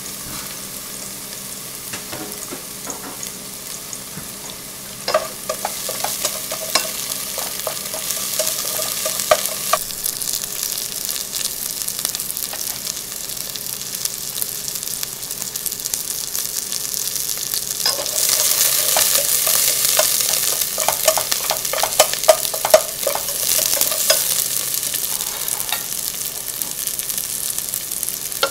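Sliced shallots sizzling in hot vegetable oil in a pot, the frying growing louder about five seconds in and again past the middle, with light clicks of a utensil stirring them.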